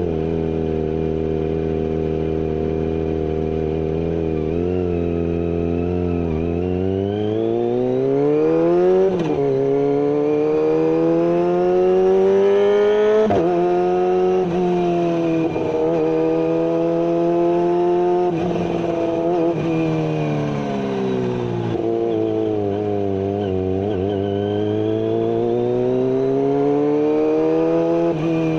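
Kawasaki ZX-25R's 250 cc inline-four engine running through a GPR carbon full-system exhaust with no dB killer. The revs climb high and then drop abruptly several times, with slower falls and rises in between.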